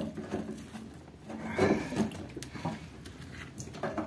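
Irregular handling noises at a cast-iron radiator: a rag rubbing against the plug and pipe, with a few light knocks and clicks.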